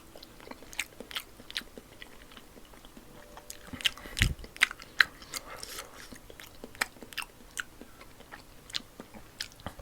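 Chewing and biting close to the microphone: irregular wet smacks and sharp clicks of a mouth working through food, with a dull low thump about four seconds in.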